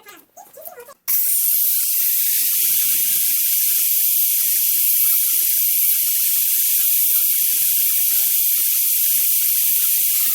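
A loud, steady hiss that starts suddenly about a second in, all of it high-pitched with no low rumble or tone.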